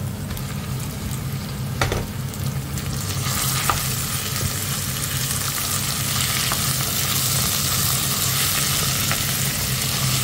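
Beef chunks sizzling as they hit hot olive oil with frying shallots and garlic in a stainless steel pot, stirred with a wooden spoon. The sizzle gets louder about three seconds in, with a few light knocks, over a steady low hum.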